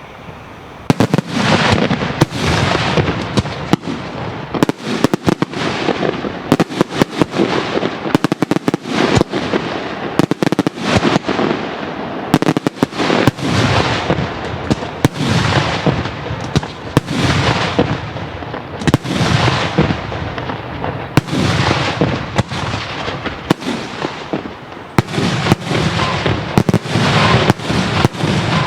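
Daytime fireworks display firing a rapid, near-continuous barrage of loud bangs and reports, starting about a second in.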